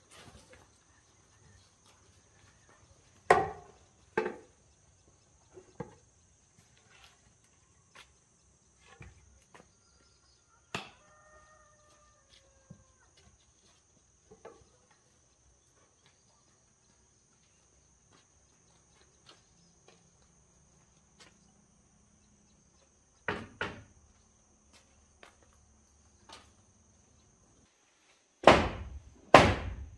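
Scattered sharp knocks of building work, a few spaced seconds apart and the loudest pair near the end, over a steady high insect drone.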